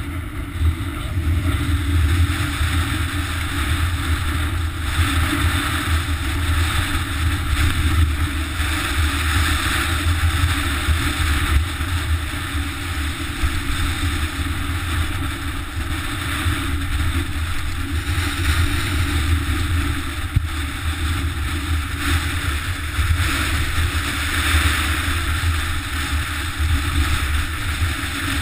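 Wind noise on a bike-mounted action camera's microphone as a mountain bike rolls down a rough, stony trail, with a steady low rumble and the crunch and rattle of tyres and frame over loose rock.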